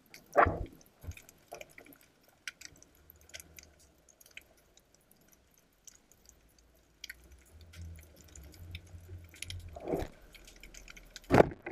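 Underwater sound heard through a diving camera's housing: scattered faint crackles and clicks, and a low steady hum that comes in about two seconds in and gets louder in the second half. A loud muffled thump comes about half a second in, another near the ten-second mark, and the loudest just before the end.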